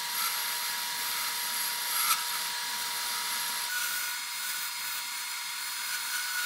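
Wood lathe spinning a segmented baltic birch plywood bowl while a turning tool cuts the inside wall: a steady hissing scrape of the tool on the wood, with a brief louder scrape about two seconds in.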